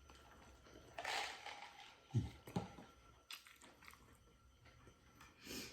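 A person chewing and biting into a Chicken Big Mac, with faint crunching and mouth noises in short bursts, the loudest about a second in.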